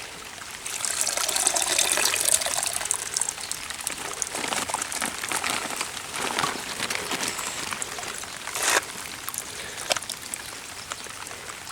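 Water gushing and splashing from a small electric transfer pump's outflow, loudest for the first couple of seconds and then weaker and uneven. The faltering flow is what the owner takes for the pump being plugged up by trash in the water.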